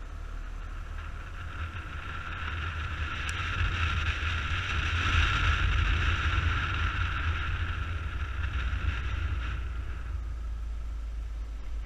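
Suzuki Burgman 200 scooter under way, with a steady low wind rumble on the microphone and the scooter's engine drone over it. The drone swells for several seconds and drops off sharply near the end.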